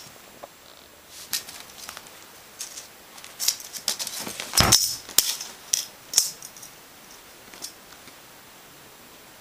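A cat scrambling about on a tile floor and rug while playing with a ruler: a run of clicks, scrapes and clatters, busiest in the middle, with one heavier thump about four and a half seconds in.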